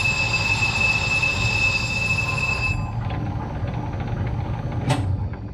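South Bend 9" lathe running slowly while a tool cuts a groove into the face of a turned faceplate; the cut gives a steady high-pitched squealing ring over the lathe's low running rumble for the first three seconds or so, then the squeal stops while the lathe keeps running. A sharp click comes near the end.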